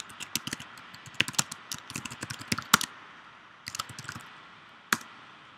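Typing on a computer keyboard: a quick run of key clicks, a short pause, a few more clicks, then one sharper single click near the end.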